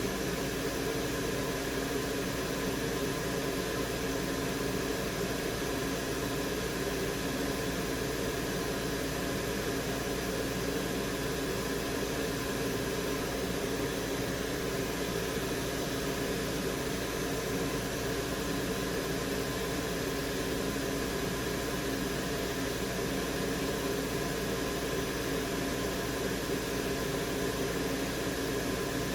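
Steady whir of a workbench fan or blower, with a constant hum and no change.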